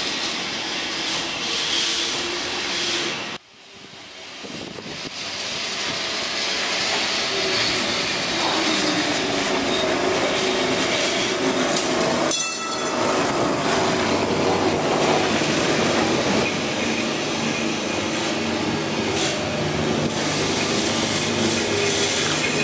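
Lisbon 'remodelado' electric tramcars running past on street track: steady rumble of steel wheels on the rails with a low hum. The sound drops out suddenly about three seconds in and swells back, and breaks off again briefly near the middle.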